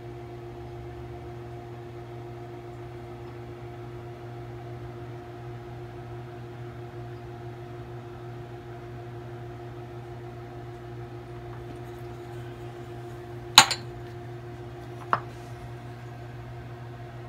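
Two sharp clinks of a glass beaker knocking on a hard tabletop, about a second and a half apart, over a steady low electrical hum.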